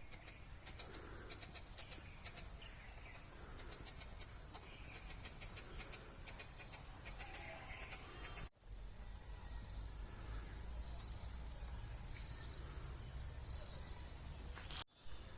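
Village outdoor ambience with birds calling. First comes a run of rapid high clicking chirps; after a cut, a short high note repeats about every second and a half over a low rumble.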